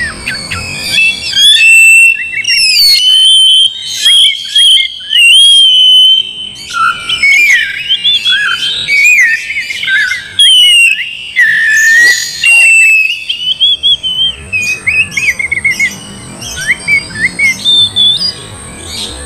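Oriental magpie-robin (kacer) singing in full voice: a long, varied run of clear whistles, rising and falling slurred notes and quick chattering phrases.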